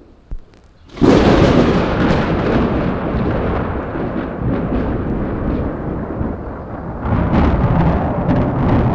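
Thunderclap: a sudden loud crack about a second in, then a long rolling rumble with crackles, swelling again near the end.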